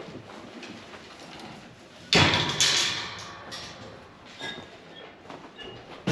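A sudden loud bang with a rattling clatter about two seconds in, dying away over a second or so, then a second bang at the very end.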